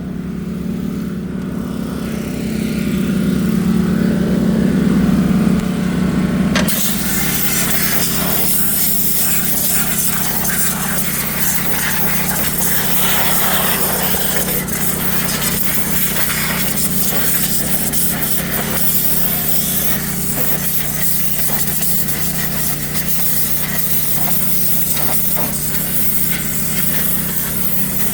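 Pressure washer running steadily with a low hum; about six and a half seconds in, the trigger opens and a loud steady hiss of the water jet starts over the motor, spraying grease and oil off a Detroit Diesel engine.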